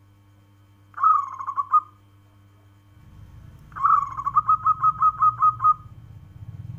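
Zebra dove (local perkutut) cooing. A short rolling phrase comes about a second in, then a longer phrase of about ten quick, evenly spaced coos.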